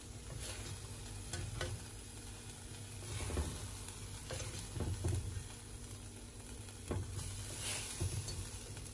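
Shrimp dry-frying with a light sizzle in a nonstick frying pan, stirred and turned with a silicone spatula, with a few soft scrapes and knocks of the spatula against the pan.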